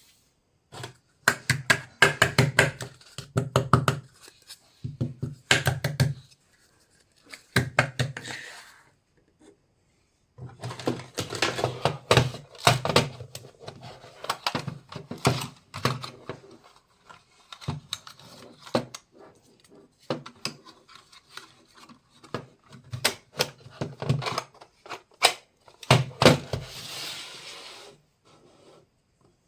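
Small plastic toy kitchen pieces being handled, unpacked and set down, in bursts of quick clicks and knocks with short pauses between.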